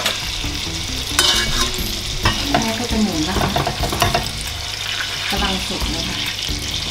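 Rolled pork loin sizzling in its pan juices in a stainless steel pan on a gas burner, with a steady frying hiss. A spoon and fork click and scrape against the pan a few times as the roast is turned over.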